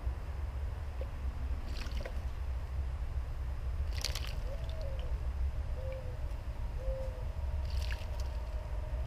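Female summer tanager bathing in a concrete birdbath: three short bouts of splashing as she dips and flutters her wings in the water, about two seconds in, around four seconds, and once more near the end. A steady low rumble runs underneath.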